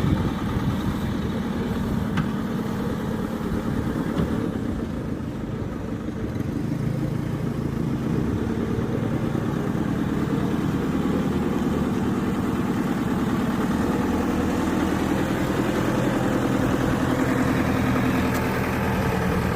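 JCB 3CX backhoe loader's diesel engine running steadily with a low, pulsing note. It dips slightly about five seconds in, then picks up and stays steady.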